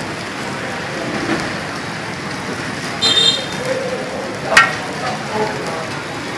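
Food sizzling in hot oil in a wok over a gas burner, with a metal ladle striking the wok: a ringing clink about three seconds in and a sharper metallic clang about a second and a half later.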